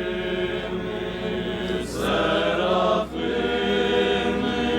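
A choir chanting liturgical music in long held notes. A new phrase begins about two seconds in, and another about a second later.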